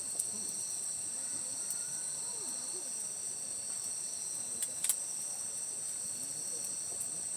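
A steady chorus of insects chirring at several high pitches, with a few sharp clicks, the loudest a pair about five seconds in.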